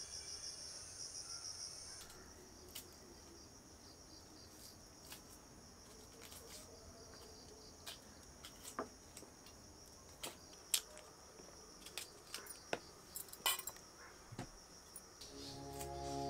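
Crickets chirring steadily in a high, continuous trill. From about halfway in come small sharp clicks of a knife paring and peeling shallots, and music fades in just before the end.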